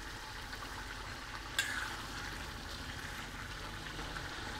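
Chicken and tomatoes simmering and sizzling in an iron karahi while a steel ladle stirs and presses the tomatoes to mash them. One sharp knock of the ladle on the pan comes about a second and a half in.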